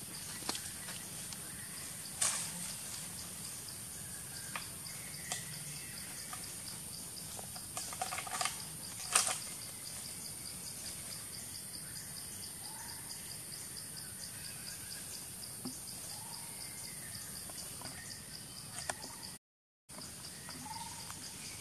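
Steady high-pitched insect chorus, a fast even pulsing with a thinner hiss above it, with a few sharp rustles and snaps in the leaf litter, the loudest about two and nine seconds in, and faint short chirps. The sound drops out for a moment near the end.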